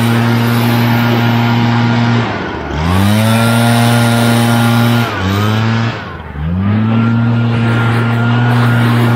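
Gas backpack leaf blower running at full throttle while blowing clippings off a ride-on mower, its engine note dropping and winding back up three times as the throttle is let off and squeezed again: once around two and a half seconds in and twice in quick succession about five to six and a half seconds in.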